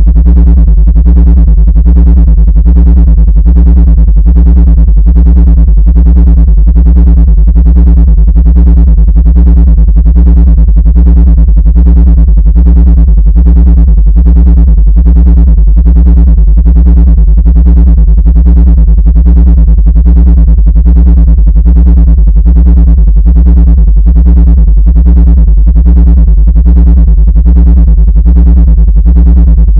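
Loud, steady synthesized drone of low tones, pulsing evenly a few times a second without change: an electronic 'anti-ant frequency' track.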